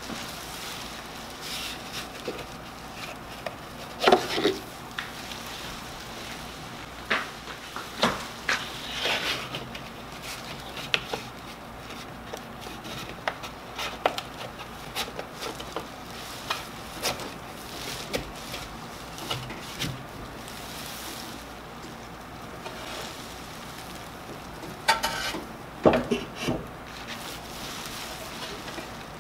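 Rustling of a plastic splash sheet and scattered clicks and knocks of hand work on the expandable rubber drum of a lapidary sanding machine while a new 400-grit sanding belt is fitted. The machine is switched off, with no motor running.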